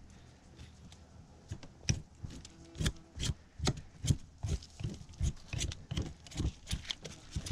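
A fillet knife scraping and cutting the last scraps of meat off a deer's leg bone in quick repeated strokes, about two or three a second, starting about a second and a half in.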